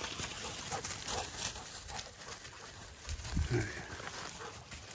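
Footsteps and a hunting dog pushing through dry leaf litter and brush, with a steady crackle of leaves and twigs. A brief low grunt sounds about three seconds in.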